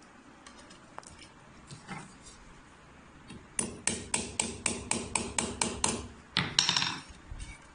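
Hammer striking a hardened steel nail into a masonry wall, marking drill positions through the holes in a wooden gate frame. A few light taps come first, then a fast even run of about ten blows, roughly four a second, and a louder ringing clatter near the end.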